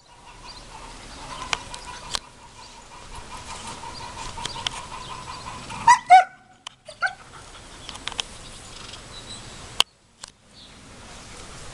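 German shepherd puppy barking: two short, high yaps in quick succession about six seconds in, then one more about a second later.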